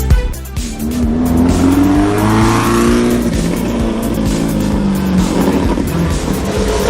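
Rally car engine revving hard under acceleration, its pitch climbing, dropping at a gear change about three seconds in, then climbing again.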